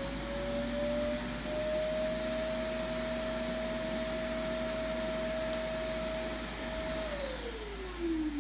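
A robot vacuum's self-emptying dock running its suction motor with a steady whine, which winds down in pitch about seven seconds in as the emptying cycle ends.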